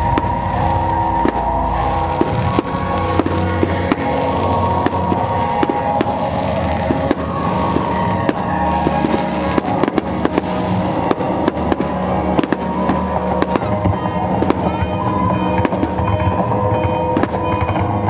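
Fireworks going off in a rapid string of bangs and crackles, over music.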